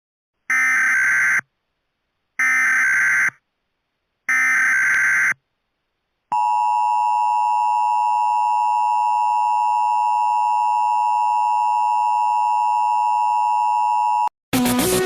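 Emergency Alert System signal: three short buzzy data-header bursts about two seconds apart, then a long steady attention tone lasting about eight seconds. The tone cuts off and music starts just before the end.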